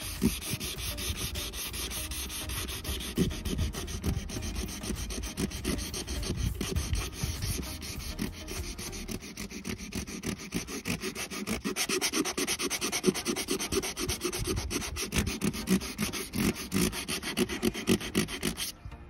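Hand sanding of a fibreglass boat hull's gelcoat with a small folded piece of sandpaper: quick, continuous back-and-forth rubbing strokes that work out scratch marks, stopping just before the end.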